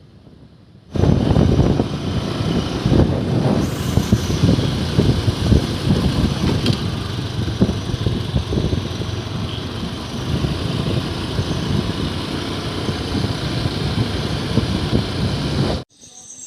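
Loud, rough noise of a moving vehicle on the road, starting suddenly about a second in and cutting off abruptly near the end.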